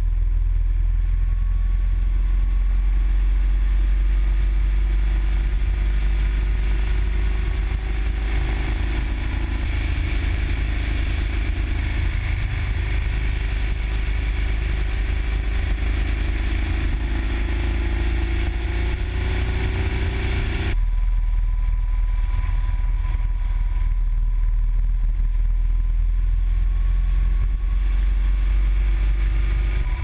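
Motorcycle engine running under way, with a heavy low rumble of wind and road noise, as heard from a camera mounted on the bike. The engine note climbs slowly for about twelve seconds as the bike speeds up, then the sound changes abruptly about two-thirds of the way through.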